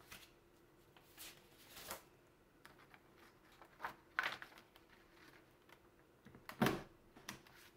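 Sheets of paper sliding and rustling on a wooden tabletop, then, near the end, a desktop three-hole punch pressed down through the paper with a short, loud thud and a lighter click just after.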